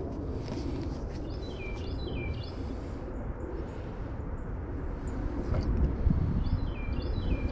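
A songbird singing a short phrase of stepped, falling notes, twice: about a second in and again near the end. Underneath runs a steady low rumble.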